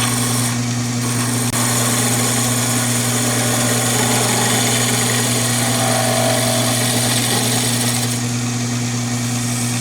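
Conover wood lathe running, its 1 hp 180-volt DC motor giving a steady hum, with the hiss of a chisel cutting the spinning yellow pine blank.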